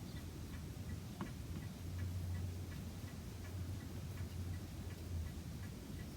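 Mechanical clock ticking evenly, about three ticks a second, over a low steady hum.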